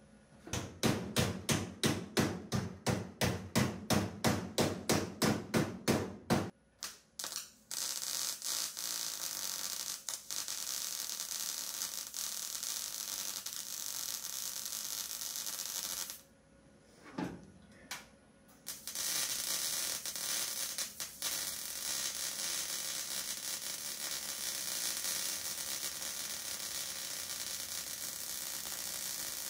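Wire-feed welder welding a steel bracket to a car's floor pan. It starts with a quick run of short stitch bursts, about two or three a second, then lays a long continuous bead. Near the middle there is a pause of a few seconds broken by two brief taps of the trigger, then another long continuous bead.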